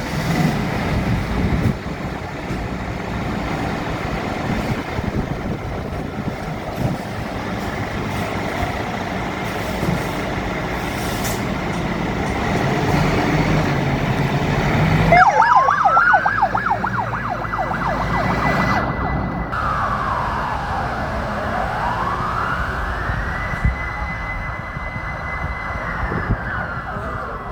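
Fire engine driving with its engine running, then about halfway in its siren comes on, climbing quickly in a fast warble to a high held tone, then sweeping slowly down and back up in a wail.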